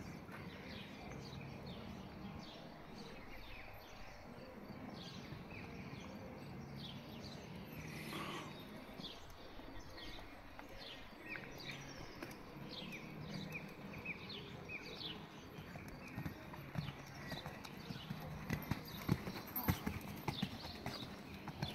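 Horse hoofbeats on a sand arena, soft at first, then louder and sharper near the end as a horse passes close by. Small birds chirp throughout in quick, short, falling calls.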